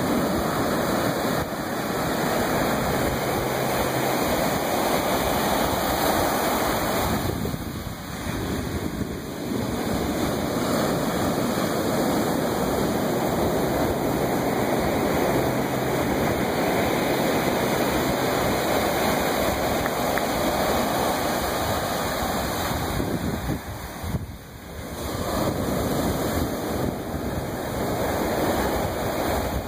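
Ocean surf breaking and washing up a sandy beach: a steady rush of whitewater that eases off briefly twice between waves.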